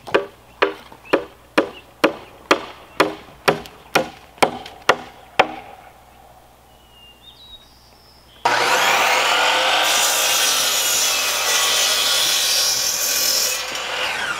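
A hammer driving nails into framing lumber: about a dozen strikes, roughly two a second, stopping after about five seconds. About eight seconds in, a miter saw starts abruptly and runs loudly, its blade cutting through a wooden board.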